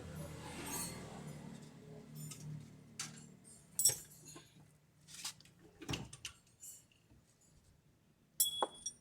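Metal tools and parts clinking and tapping in irregular light knocks, with one sharper ringing clink near the end.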